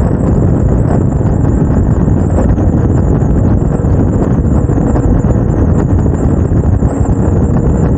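Suzuki GSX-R750 motorcycle cruising at road speed: a steady, loud rush of wind buffeting the camera's microphone, with the engine running underneath.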